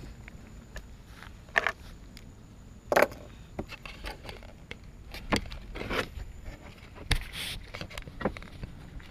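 Handling noise close to the camera: scattered rustling, scraping and knocking as a person moves about, the two loudest knocks about one and a half and three seconds in.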